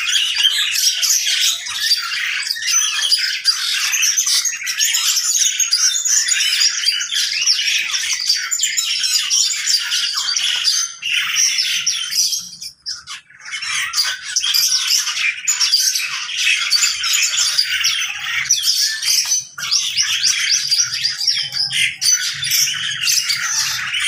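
Many caged birds of mixed species calling at once: a dense, continuous chatter of high squawks and chirps, with a short lull about halfway through.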